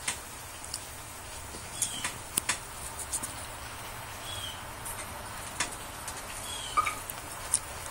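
Mouth smacks and clicks of someone chewing chicken wings, a sharp click every second or so over a steady hiss. Three or four short high chirps come from a caged pet bird, one about two seconds in and the others near the middle and just before the end.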